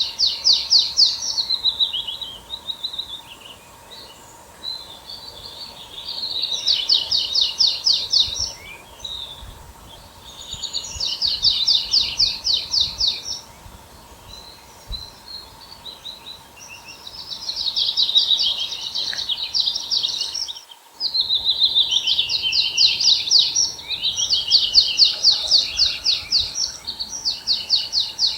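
A songbird singing the same song over and over: a fast, high trill of evenly spaced notes lasting about two seconds, repeated every five or six seconds. A faint steady hum runs underneath.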